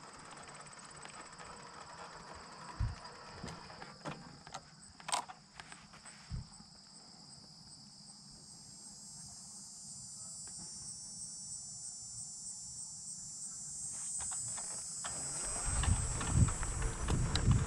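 Insects trilling steadily in a high pitch, growing louder toward the end. A few short knocks in the first seconds, and a low wind rumble on the microphone in the last couple of seconds.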